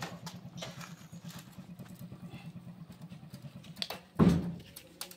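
A steady low hum of an idling engine, with light metal clicks and clinks of tools and engine parts being handled. About four seconds in comes one loud, dull thump.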